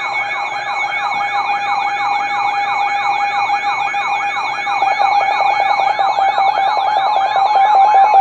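Weather alert radio's siren alarm sounding for an incoming warning: an electronic warble sweeping up and down about four times a second over steady tones. A fast pulsing beep joins about halfway through.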